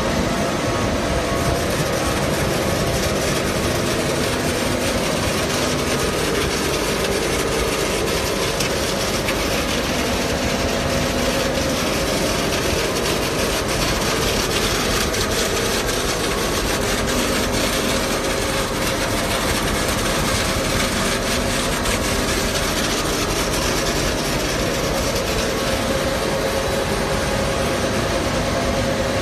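Paper-mill rewinder and its electric drive motors running: a steady, loud rushing noise with a low hum under it, unchanging throughout.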